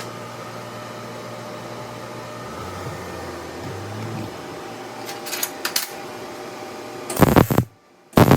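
Steady electrical hum of shop machinery with several held tones, broken by a few short crackles about five seconds in. Near the end come two loud, abrupt bursts of noise with silent gaps between them.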